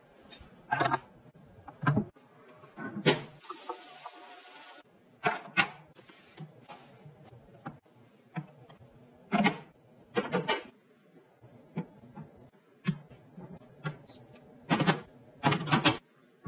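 A series of separate light knocks and clatters from kitchenware being handled: a lid set onto a pot, then eggs and plastic trays put into an electric steamer. There is a short stretch of rustling noise about four seconds in.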